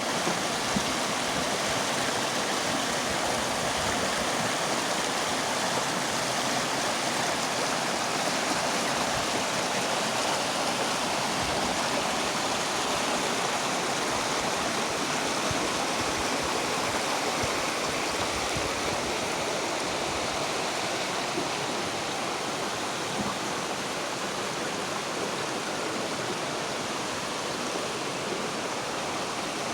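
Steady rushing of a mountain stream's water over rocks, a constant full wash of sound with no breaks.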